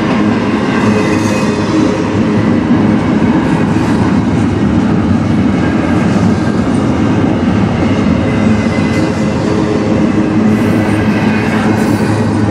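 Double-stack intermodal freight train's loaded well cars rolling past close by: a loud, steady rumble of steel wheels on the rails.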